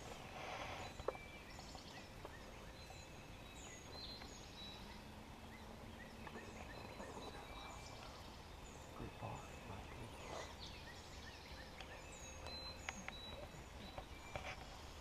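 Faint woodland background with small songbirds chirping again and again, and a wild turkey gobbling faintly.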